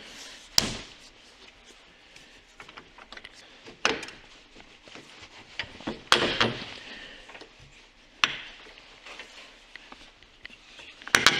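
Wrench and ratchet working the bolts of a snowmobile's rear hitch and bumper: scattered small metal clicks and rubbing, broken by about five sharp knocks spread through, the last ones in a quick cluster near the end.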